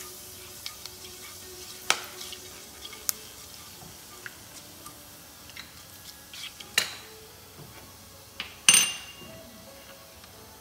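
Whole spices frying in hot mustard oil with a faint steady sizzle. A metal utensil knocks against the pan a few times; the loudest knock, near the end, rings briefly like metal.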